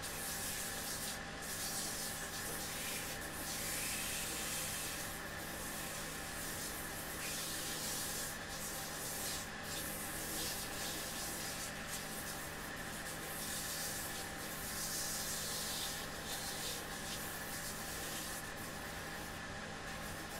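Shoe-repair finishing machine (GP-Combi-140) running with a steady motor hum while a leather boot is sanded on its spinning wheel. The sanding hiss swells and fades in spells every few seconds as the boot is pressed on and eased off.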